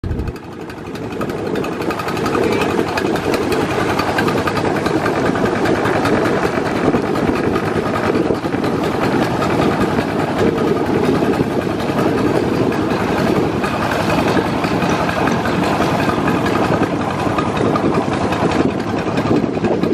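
Engine of a wooden long-tail boat running steadily under way at speed. It grows louder over the first two seconds, then holds an even pitch.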